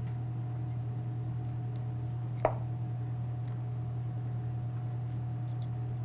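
Kitchen knife slicing through peeled pineapple on a plastic cutting board, with one sharp knock of the blade on the board about two and a half seconds in and a few faint small ticks, over a steady low hum.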